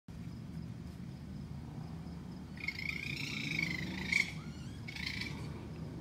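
An unidentified animal's high-pitched, wavering call: one long call about halfway through and a shorter one near the end, over a steady low hum.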